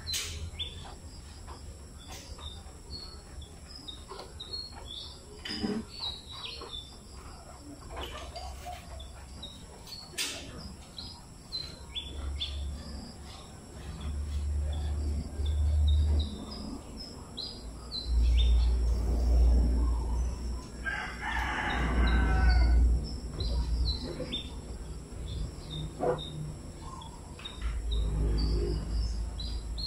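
A rooster crows once, about two-thirds of the way through, over small birds chirping throughout. A low rumble comes and goes underneath.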